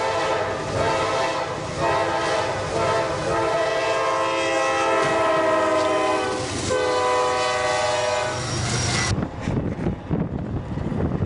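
Norfolk Southern diesel locomotive's air horn blaring a chord in long blasts with short breaks as the train bears down on and strikes a limousine stuck on the crossing. About nine seconds in the horn cuts off abruptly, giving way to the rumble and knocking of the train pushing the car along the track.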